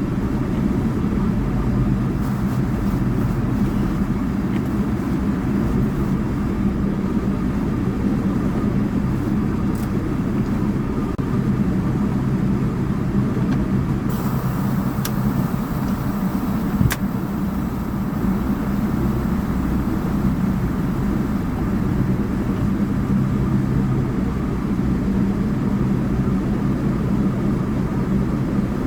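Semi-truck's diesel engine running steadily at low speed. A brief high hiss starts about halfway through and ends with a sharp click.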